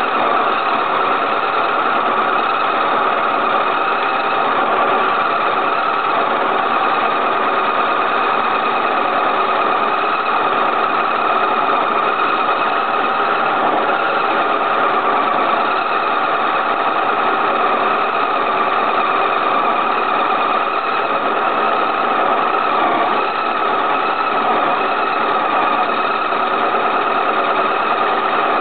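Milling machine spindle turning a boring head that is boring out a large hole in a steel plate. Steady, unbroken machine running and cutting sound.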